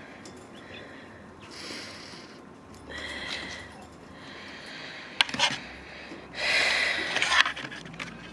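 Caged pet birds giving harsh, scratchy calls several times, the longest and loudest about six seconds in, with a few sharp clicks from the cage a little before it.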